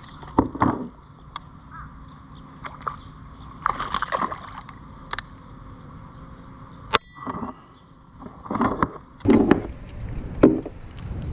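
A hooked peacock bass splashing at the surface beside a kayak as it is landed, with scattered knocks and clicks of fishing gear against the kayak; one sharp click about seven seconds in.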